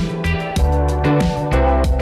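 Background music: a beat-driven track with heavy bass, drums and a plucked guitar line.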